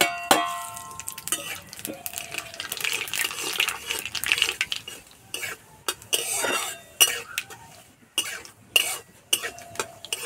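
Nigella seeds and dried red chillies sizzling as they hit hot mustard oil in a metal kadai. A steel plate clangs and rings against the pan as they are tipped in, then a metal spatula scrapes and taps the pan while stirring.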